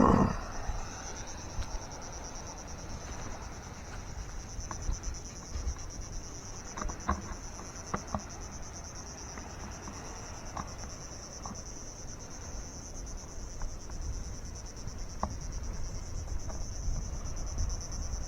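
Crickets trilling steadily in a high, finely pulsing chorus, over a low rumble of wind on the microphone, with a few faint clicks in the middle.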